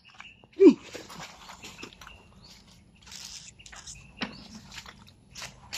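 Hands scraping and squelching in wet mud while pulling a mud crab out of the ground, a run of short rustles and scrapes. A single short, loud falling yelp comes about half a second in.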